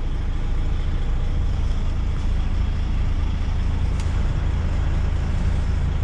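DAF XF105's straight-six diesel engine idling, a steady low rumble heard inside the cab, with one faint click about four seconds in.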